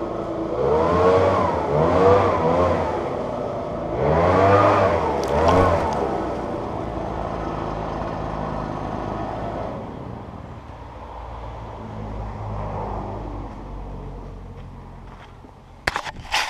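An engine revving up and down repeatedly in quick rises and falls, then running more steadily and fading away. A few sharp clicks or knocks come right at the end.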